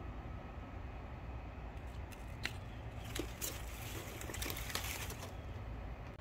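A reacher-grabber tool's jaws clicking and leafy roselle stalks rustling as it grips at a pile of cut stems. A few scattered clicks come from about two seconds in, over a low steady background noise.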